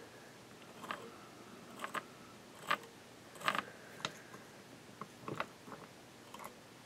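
Faint, irregular short scratches and clicks of a small twisted-wire brush raking a fly's Angora dubbing body on a hook in the vise, brushing out trapped fibres.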